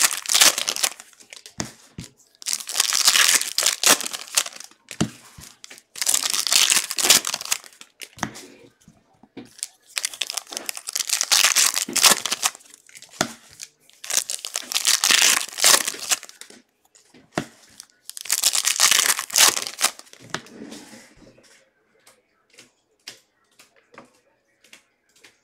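Plastic trading-card pack wrappers being crinkled and torn open by hand, in six loud bursts a few seconds apart. Near the end only a few light clicks and taps are left.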